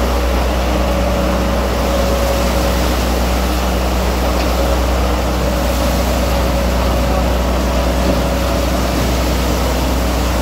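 A fishing trawler's engine and machinery running steadily: a deep, constant drone with a steady hum over it.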